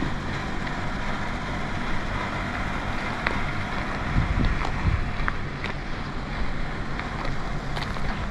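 Outdoor ambience: wind buffeting the microphone over a steady low rumble, with a few light ticks scattered through.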